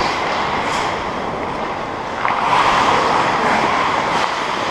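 Steady rushing noise from a hockey player skating: skate blades on the ice and air rushing past a helmet-mounted action camera's microphone, growing louder about two seconds in.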